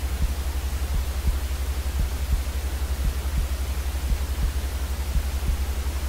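Steady sleep-aid white noise: an even hiss with a strong low rumble beneath it. Soft low thuds recur at uneven spacing, about once or twice a second.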